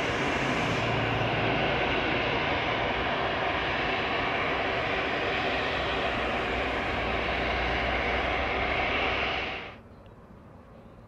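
Pilatus single-engine turboprop landing and rolling out: a loud, steady propeller-and-turbine rush with a whine, which cuts off suddenly near the end, leaving only faint background.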